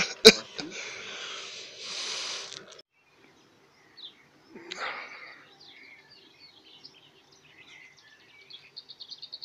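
Small songbirds chirping and twittering in short high calls, with a fast repeated trill near the end. Before them, a sharp knock and a couple of seconds of noise that cut off abruptly.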